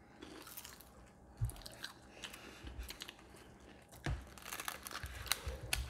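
Biting into and chewing crunchy fried peach mango pies, with a few sharp crunches of the crisp crust about a second and a half in, about four seconds in, and twice near the end.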